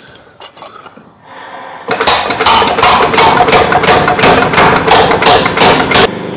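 Big Blu 155 air power hammer working a textured titanium plate in bowl dies to dish it into a bowl. About two seconds in it starts a fast, even run of blows, about four or five a second, with the struck metal ringing, and pauses briefly near the end.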